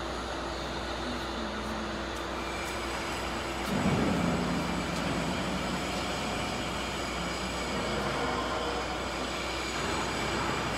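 CNC oscillating-knife cutting machine running, a steady machine hum with its vacuum blowers going. A brief louder rumble swells about four seconds in.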